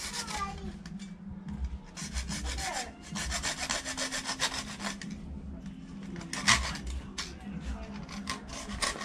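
Hand hacksaw cutting through PVC pipe: rasping back-and-forth strokes in several runs with short pauses, and one louder stroke about six and a half seconds in.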